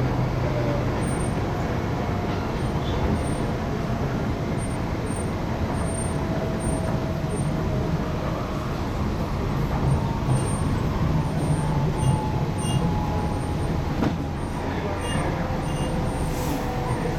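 Inside an MTR East Rail R-Train electric multiple unit on the move: a steady rumble of wheels on rail, with faint whining tones that slowly shift in pitch.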